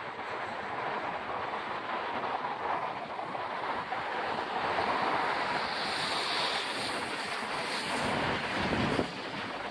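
Steady rushing noise of wind and distant rail traffic, with wind buffeting the microphone about eight seconds in.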